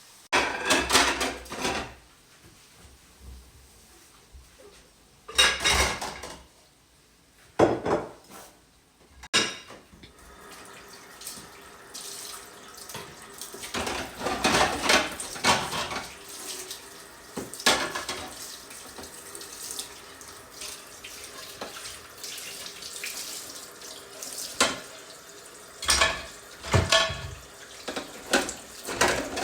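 Kitchen sink and dish sounds: water running from a tap and pots, pans and cutlery clattering, in several separate spells, with steadier background noise and repeated clatters in the second half.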